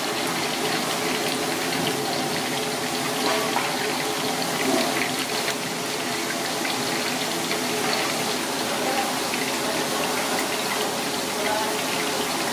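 Hot oil sizzling steadily around a whole flying fish deep-frying in a wok, an even hiss with small scattered pops.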